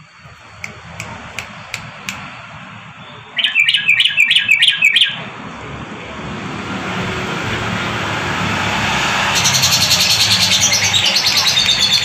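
Caged yellow-vented bulbul (trucukan) singing: a loud run of quick repeated chirps about three seconds in, then a longer busy stretch of rapid high song near the end over rising background noise.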